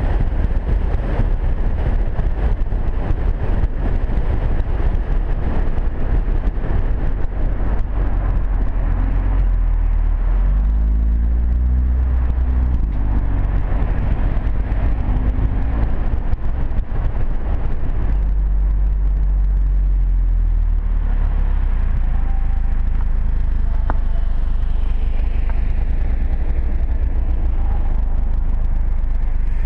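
Audi TT-S turbocharged four-cylinder engine and exhaust heard from outside the moving car, under steady wind buffeting and tyre rumble on the microphone. The engine note drops as the car slows about ten seconds in, then picks up again around eighteen seconds.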